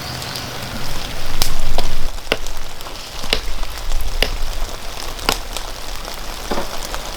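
Wood fire crackling: a steady hiss with sharp separate pops every second or so. A louder low rumble lasts under a second near the start.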